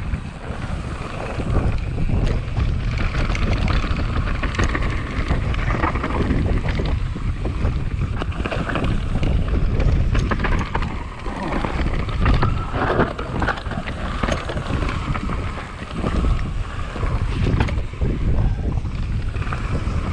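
Wind buffeting the camera microphone during a mountain bike descent, with the tyres rolling over loose dirt and rocks. The bike's frame and parts clatter and rattle over the bumps throughout.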